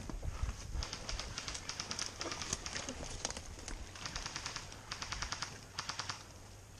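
Several short bursts of rapid, even clicking from airsoft guns firing on full auto.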